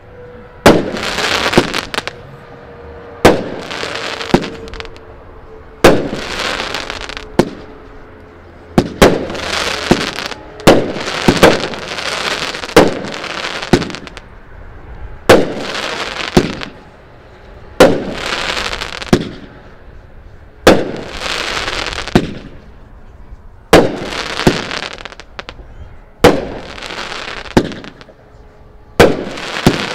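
"Badge of Honor" consumer fireworks cake firing a steady string of shots, about one a second. Each shot is a sharp bang followed by about a second of hiss as the shell bursts into gold sparkles.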